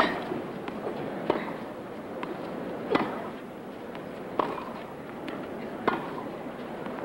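Tennis rally: a racket strikes the ball in a sharp crack about every second and a half, with fainter bounces and footfalls between, over a low steady crowd murmur.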